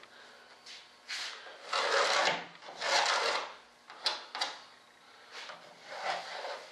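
Utility knife blade drawn through thin plywood sheet in several separate scraping strokes, the longest about two and three seconds in, with shorter ones after.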